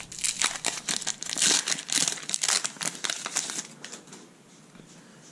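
Foil Pokémon booster pack wrapper crinkling and crackling as it is torn open by hand. The crackling dies down after about three and a half seconds.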